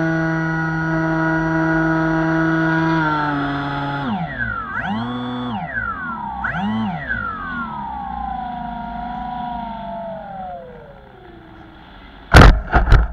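Electric motor and pusher propeller of a Bixler 2 RC foam plane, heard from its onboard camera. It runs as a steady whine for about four seconds, then the throttle is cut and opened briefly twice. After that comes a long whine that slowly falls in pitch as the plane glides in to land. Near the end the plane touches down in the grass with three loud thumps.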